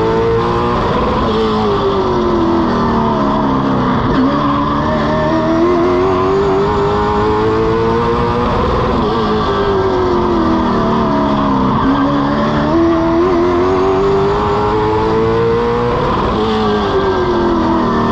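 Race car engine running hard, heard from under the car: its pitch climbs for several seconds, then drops away for a few seconds, peaking three times about seven and a half seconds apart, as the car accelerates and lifts lap after lap. A steady rush of road and wind noise runs underneath.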